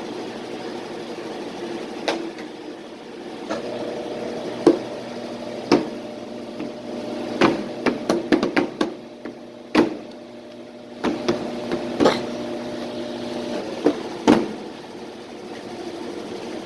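Washing machine on its spin cycle: a steady motor hum that fades out a few times and comes back, with sharp knocks and clicks at irregular moments, clustered near the middle.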